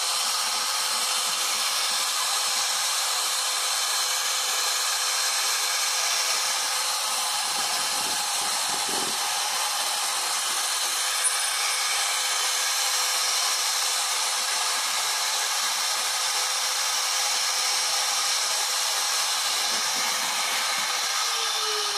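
CNC router spindle running with a red router bit cutting a relief carving into wood: a steady high whine with the hiss of cutting. Near the end one tone starts to fall in pitch.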